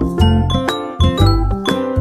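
Background music: a quick melody of short struck notes over a deep bass note.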